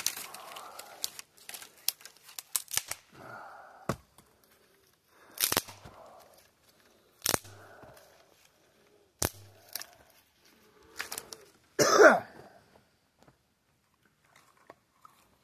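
Small dry dead branches snapped by hand, a sharp crack every couple of seconds with twigs rustling in between. A loud cough about twelve seconds in.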